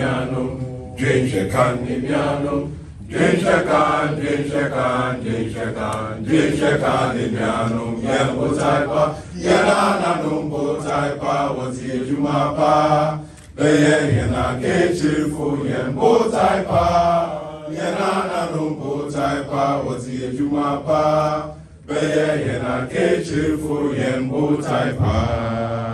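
A large group of men singing their school song together, loud and full-voiced, in long phrases with brief pauses between them.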